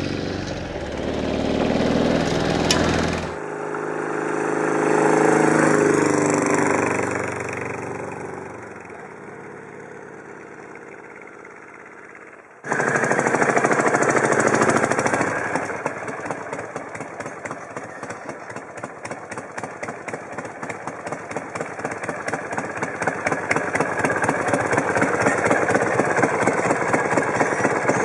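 Chang Jiang 750 sidecar motorcycle's flat-twin engine running as the outfit rides past, rising and falling in pitch and fading away. Then, close up, the same kind of engine idling with rapid, even firing pulses.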